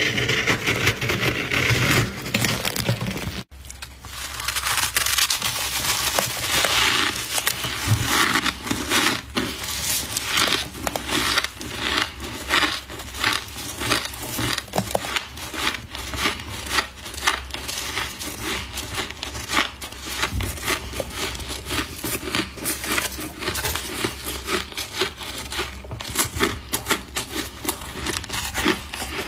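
Frost being chewed close to the microphone: a continuous run of crisp crunches, several a second, with a brief break about three and a half seconds in.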